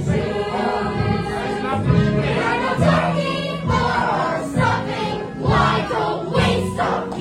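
A musical-theatre ensemble song: a group of voices singing together over instrumental accompaniment.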